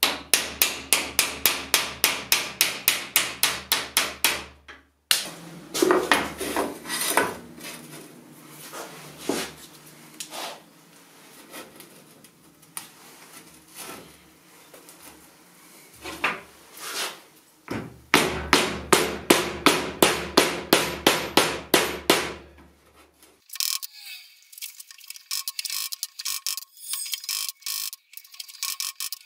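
Hammer beating a cold chisel into the laminated steel core of a microwave oven transformer, in fast even blows of about four or five a second, to cut it apart. There is a run of blows at the start and another about two-thirds of the way through, with irregular knocks and scraping between them. Near the end come lighter, ringing taps on the transformer.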